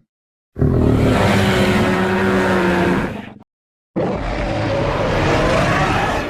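Two fan-made Majungasaurus roar sound effects, each about three seconds long, with a short silence between them; the second tails off at the end.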